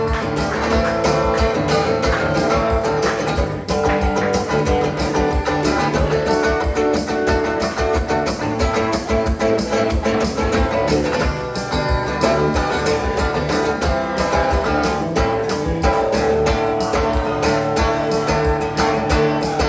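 Live band playing an instrumental break, guitar-led over a steady beat, with no singing.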